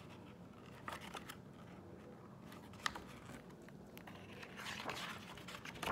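A hardcover picture book being handled and a page turned: faint paper rustling with a few light clicks, the rustle growing louder near the end.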